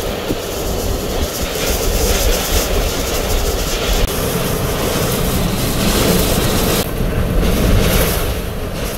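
Hurricane-force wind and driving rain in the inner core of a Category 2 hurricane: a loud, steady rush.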